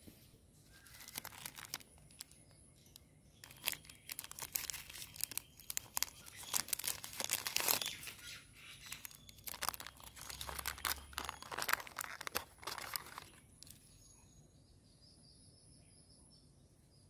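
Wrapper and foil of a Cadbury Dairy Milk bar being torn open and peeled off by hand: a dense run of crinkling and crackling that lasts about twelve seconds, then stops.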